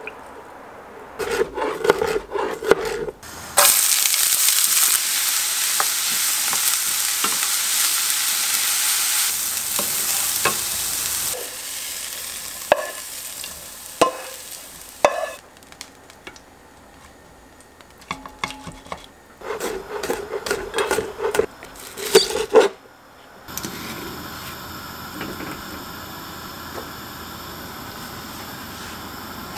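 Kitchen cooking sounds one after another: clatters of chopped burdock being handled in a stainless-steel bowl, then several seconds of loud, even sizzling of food frying in a pan. After that come scattered utensil knocks, and from near the end a pot simmering steadily on a gas stove.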